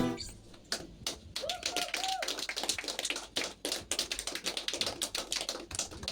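A small audience applauding by hand, with a short call from one listener about a second and a half in.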